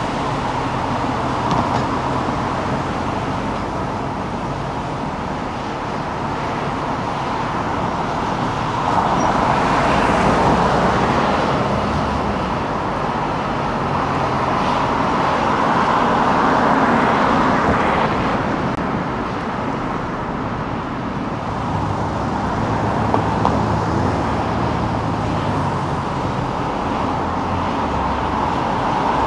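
Car driving through city traffic: steady tyre and road noise over a low engine hum, swelling louder twice as traffic builds around it.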